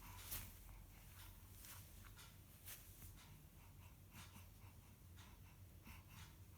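Near silence: room tone with a low hum and scattered faint clicks and rustles.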